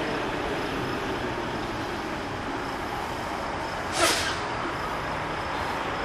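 Steady vehicle rumble at a railroad grade crossing, with a faint high ding repeating at even spacing from the crossing signals. About four seconds in comes one short, sharp air hiss, the loudest sound, from a truck's air brakes.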